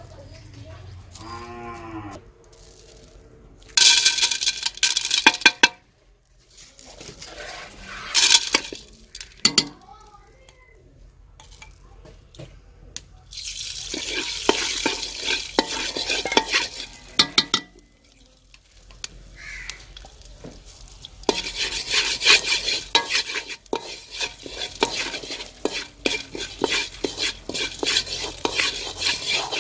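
Metal spoon stirring and scraping unpopped corn kernels around a metal karahi, a dense rattling scrape that comes in several spells with quieter gaps between them.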